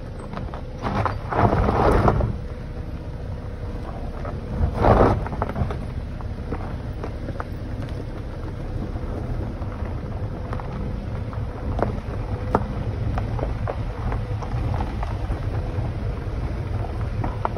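Car driving on a gravel road: a steady low rumble of tyres over gravel with scattered small stone clicks. Two louder rushes of noise come about one and five seconds in.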